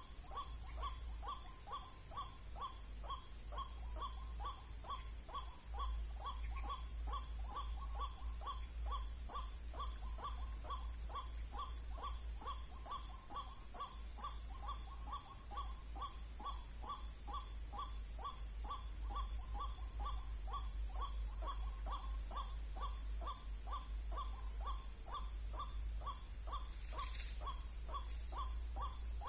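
White-breasted waterhen (ruak-ruak) calling, a short note repeated monotonously about three times a second without a break. A steady high hiss lies under it.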